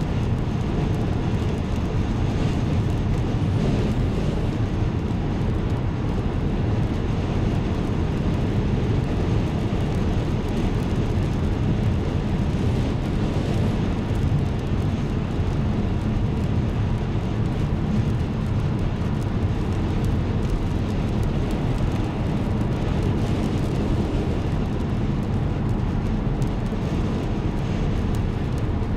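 Road noise heard inside a car's cabin at motorway speed: a steady low rumble of tyres and engine that hardly changes throughout.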